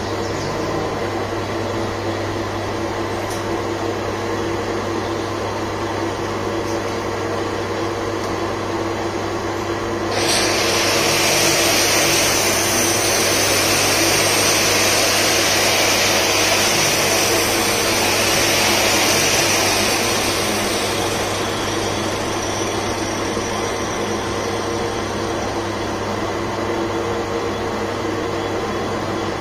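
Manual lathe running with a steady motor and gear hum; from about ten seconds in to about twenty seconds a louder hissing scrape is added as the cutting tool bites into the spinning metal workpiece.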